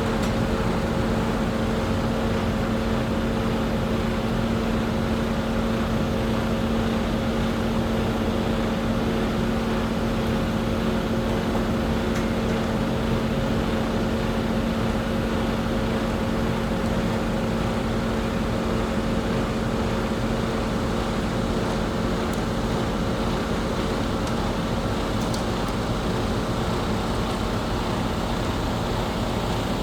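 An engine running steadily at constant speed: an unchanging low hum with a fixed pitch.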